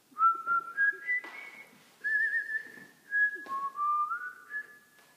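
A person whistling a tune: a run of clear, held notes that mostly step upward in pitch, with one warbling note about two seconds in.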